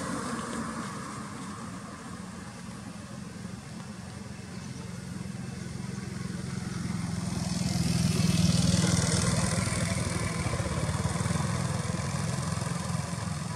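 A motor vehicle passing on the road: a steady low engine rumble grows louder, with rising tyre and road hiss, peaks about eight seconds in, then slowly fades.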